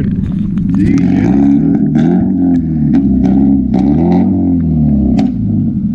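An engine running loudly, its pitch rising and falling repeatedly as it revs up and down, with scattered clicks.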